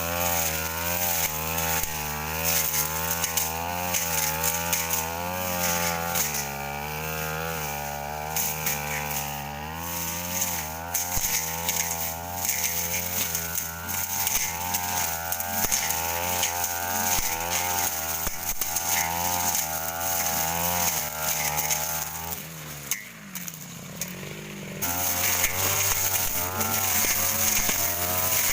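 Stihl petrol brush cutter with a Tanika blade running under load while clearing brush, its engine pitch wavering as the blade cuts. About three quarters of the way through the revs fall away briefly, then it throttles back up.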